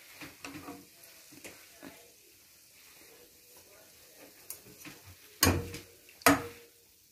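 Hot oil crackling faintly in a frying pan as fried donuts are drained in a wire skimmer, with light metal clicks from the utensils. Near the end come two sharp louder metal knocks about a second apart, as the skimmer and spatula strike.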